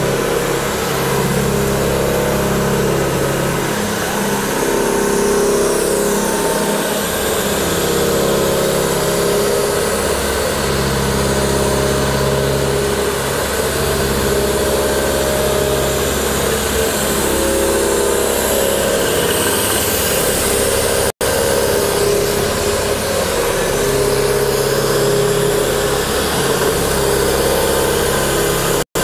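1990 Olivetti CNC horizontal boring mill running: a steady machine hum with several held tones, the deepest of them shifting now and then. The sound cuts out twice for an instant in the last third.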